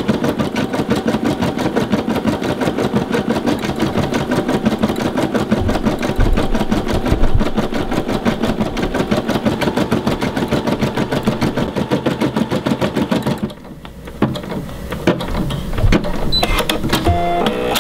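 Brother SE600 embroidery machine stitching at speed, with a rapid, even needle-and-hook rhythm. It stops suddenly about three-quarters of the way through, and a few light clicks follow.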